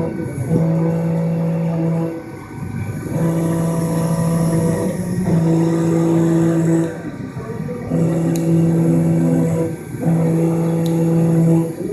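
Vertical milling machine cutting a round metal part under flood coolant: a steady pitched cutting tone in stretches of about two seconds, broken by short pauses.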